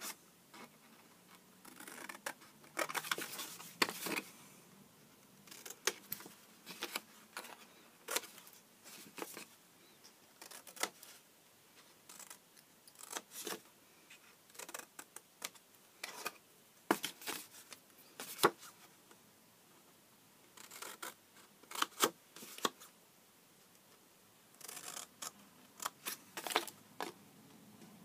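Scissors snipping through card stock: short, sharp cuts in irregular clusters, with pauses between.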